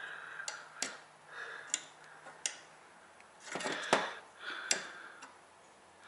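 Sharp light clicks and taps, about seven or eight spread irregularly, from small metal parts being handled while hand-working an RC boat propeller. Softer rasping swells come between the clicks.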